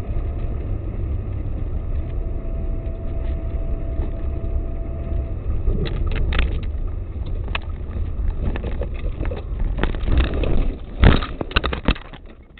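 Steady road and engine rumble of a moving car, then from about halfway through a run of sharp knocks and crunches, loudest near the end: a car crash.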